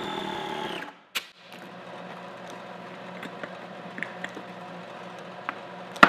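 Small electric air compressor inflating an inflatable seat cushion, running steadily then winding down and stopping a little under a second in as it reaches its preset pressure. Then small clicks of the hose and valve being handled, and one sharp click near the end.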